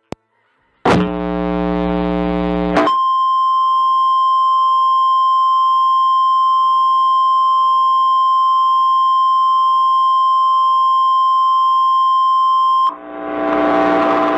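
Mock Emergency Alert System alarm: a short click, then a loud, harsh electronic buzz for about two seconds, followed by a long, steady, high-pitched attention tone lasting about ten seconds. The tone cuts off near the end and a burst of hiss-like noise follows.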